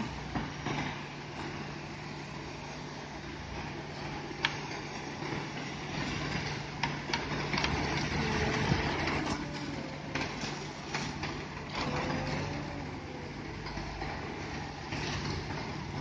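Hino Ranger concrete mixer truck unloading: its engine runs with a steady low hum as the drum discharges concrete, with scattered sharp clinks and knocks over it.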